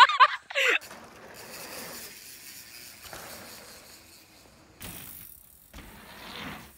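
A person's loud yell cuts off under a second in, followed by the quieter noise of mountain bikes rolling over a dirt trail, with a new, slightly louder stretch of riding noise starting about five seconds in.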